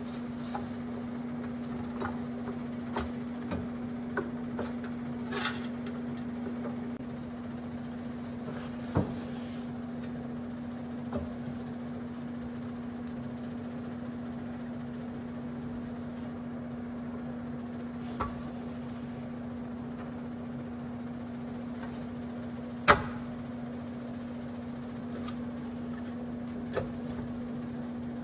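Scattered knocks and clanks of tools and car parts being handled during suspension reassembly, the loudest a sharp clank about 23 seconds in, over a steady low electrical hum.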